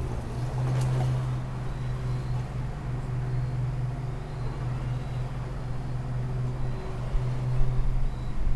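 Traxxas K5 Blazer RC crawler driving, its electric motor and gearbox giving a steady hum with a faint whine that comes and goes.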